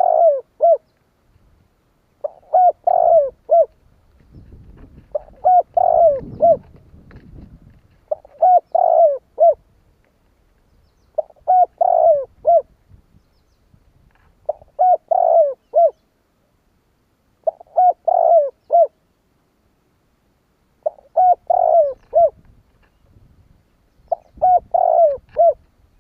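Spotted dove cooing: a short phrase of several low coos, repeated about every three seconds.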